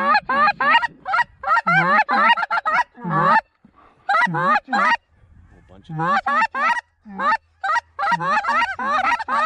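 Goose call blown in quick runs of short honks, each breaking from a low note to a high one, about three to four a second, with two short pauses partway.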